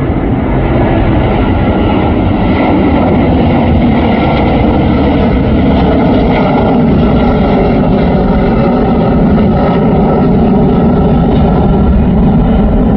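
Airliner engines running loud and steady at takeoff power: a deep rumble with faint steady whining tones above it.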